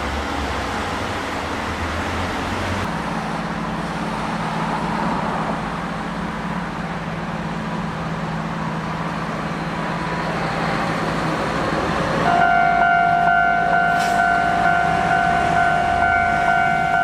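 A former Keikyu electric train on the Kotoden Nagao Line running along the track, a steady rumble of wheels on rail with a low hum. About twelve seconds in, a steady electronic tone starts suddenly over it.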